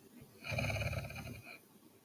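A sleeping woman snoring: one loud snore about a second long, starting about half a second in.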